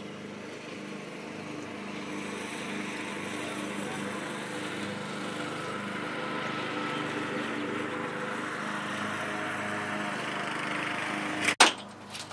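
A steady engine hum that slowly builds in level, broken by a sharp click near the end.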